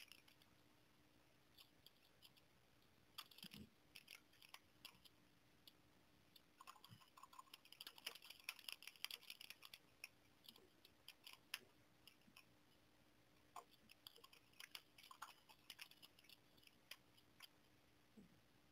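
Computer keyboard being typed on: faint rapid key clicks in bursts, with short pauses between words.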